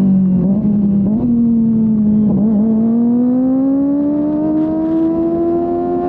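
Kawasaki Ninja ZX-25R's inline-four engine through a Yoshimura R-11 exhaust. The revs drop, hitch briefly a couple of times, then climb steadily as the bike accelerates.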